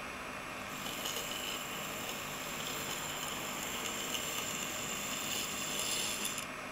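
Tiny electric drive motor of a 1:76-scale radio-controlled die-cast AEC pick-up truck running as the model drives, a steady high-pitched whine that starts about a second in and cuts off just before the end.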